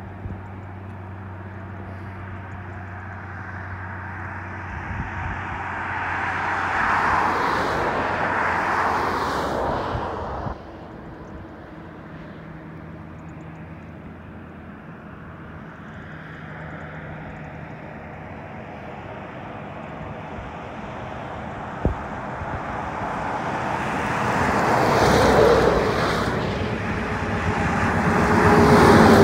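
Highway traffic: cars and lorries passing, their tyre and engine noise swelling and fading twice over a low steady engine hum, the second swell a lorry going by close at hand. The sound drops off abruptly about ten seconds in.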